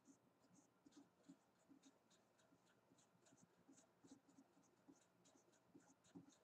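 Faint, soft strokes of a paper blending stump rubbing over graphite on drawing paper, several light strokes a second, smoothing and softening a 6B pencil tone.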